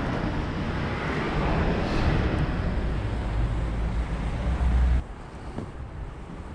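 Wind buffeting the microphone: a heavy low rumble over outdoor hiss that cuts off abruptly about five seconds in.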